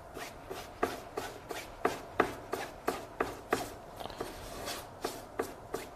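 Paintbrush loaded with oil paint stroking back and forth across a canvas, a scratchy rubbing swish about three times a second.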